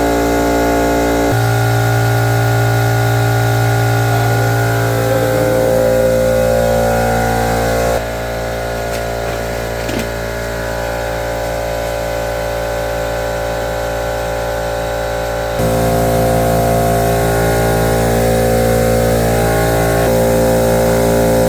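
Vacuum cleaner motor running steadily while sucking dust out of a dryer vent duct. It drops in level for several seconds in the middle, then rises again.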